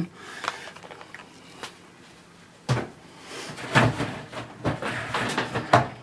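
Handling knocks and clunks: a Dyson V8 cordless stick vacuum set down on a kitchen worktop and the lid of a stainless steel kitchen bin opened. There is one sharp knock about halfway, then several clunks and clicks in the last couple of seconds.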